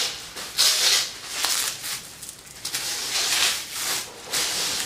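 Plastic wrap and packing material rustling and crinkling in several short bursts as it is pulled off a metal planter pot.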